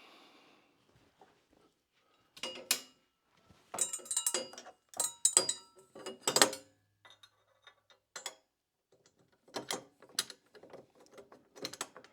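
Bike trailer parts clicking and rattling as they are handled and fitted together by hand: a few sharp clicks after a quiet start, a dense clatter between about four and six and a half seconds in, then scattered clicks.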